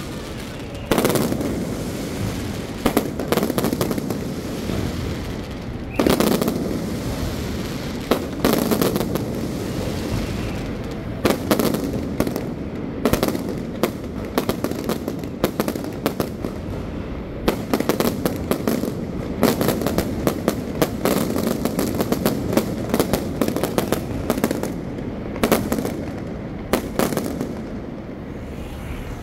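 Aerial fireworks going off in close, rapid volleys. There is an irregular stream of sharp bangs and crackle over a constant rumble, with several louder reports among them.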